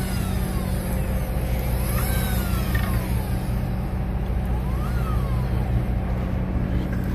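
Steady low hum of a fishing boat's engine running, with a whine that rises and falls in pitch three times.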